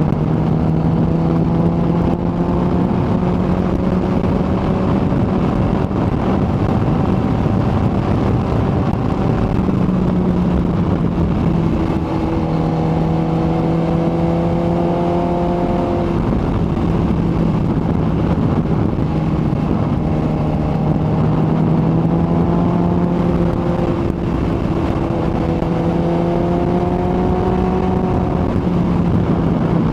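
Kawasaki ZX-14R's inline-four engine running at a steady cruise, its note sagging and climbing slightly a few times, under a constant rush of wind and road noise.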